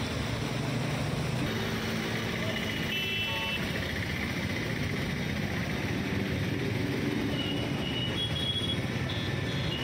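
Steady traffic noise of vehicles driving through a flooded road, with engines running under a continuous wash of noise. A short horn-like tone sounds about three seconds in.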